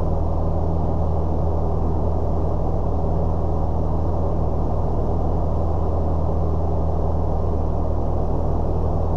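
Citabria 7ECA's four-cylinder Lycoming engine and propeller running at a steady power in flight, a constant muffled drone heard through the headset intercom feed.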